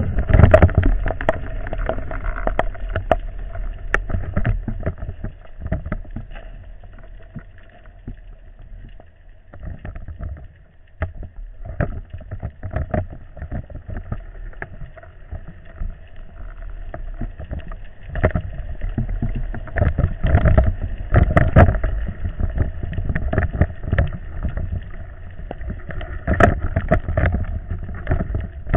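Underwater sound through a camera's waterproof housing as a spearfisher swims over a reef: a muffled rumble of moving water with a steady hum and many irregular clicks and knocks, louder in the second half.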